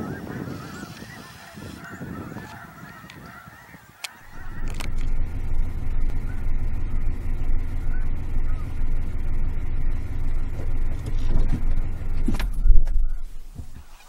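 A large flock of snow geese honking and calling together for about four seconds. Then a louder, steady low rumble of a car's engine and road noise, heard from a dashcam inside a slowly rolling car, with a sharp knock near the end.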